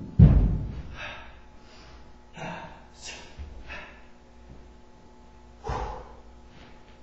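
A heavy thud of a person landing on the floor just after the start, then a series of short, sharp breaths and exhalations from the exertion of a kung fu form, with another thump and breath near the end.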